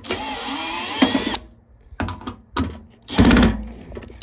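Power drill running in bursts, driving out the screws that hold the heater box halves together. It runs steadily with a high whine for about a second and a half, then gives a few short spurts, the loudest with a rapid rattle a little past three seconds in.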